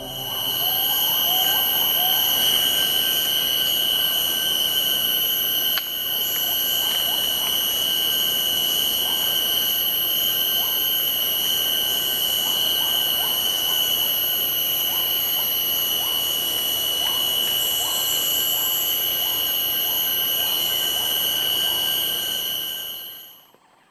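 A recorded insect chorus: a loud, steady, high-pitched trilling at several fixed pitches, with faint short chirps below it. It fades in at the start and stops about half a second before the end.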